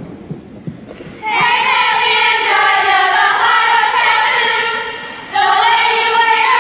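A group of women singing together in unison, coming in loudly about a second in with long held notes, dropping away briefly around five seconds in and then resuming. A few soft thumps come before the singing starts.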